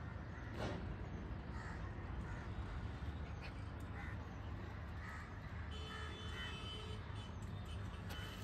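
Crows cawing several times in short, harsh calls over a steady low background rumble.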